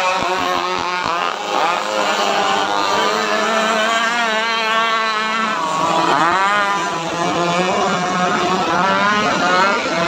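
Several gas-powered RC racing boats with modified two-stroke chainsaw engines running flat out together, their overlapping engine notes sliding up and down in pitch, with one sweeping past closer about six seconds in.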